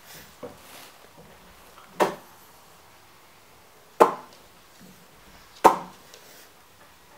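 French bulldog puppy giving three short, sharp yaps, spaced a couple of seconds apart.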